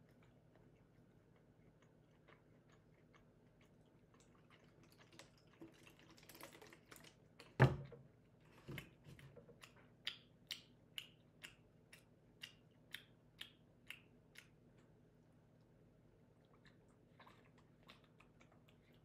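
Faint chewing of a sandwich, starting a few seconds in: a run of small sharp crunches, about two a second, with one louder thump about halfway through.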